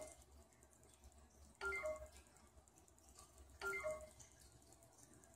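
A short chiming motif of a few clear notes at different pitches, repeating about every two seconds, four times.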